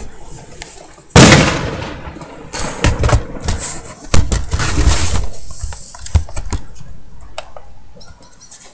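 Fireworks going off: loud bangs about a second in and again around four seconds, a quick run of sharp cracks in between, then scattered crackles and pops thinning out toward the end.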